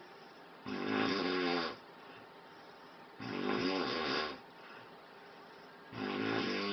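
A sleeping man snoring: three snores about a second long, each a pitched buzz, coming roughly every two and a half seconds, with quiet breathing between them.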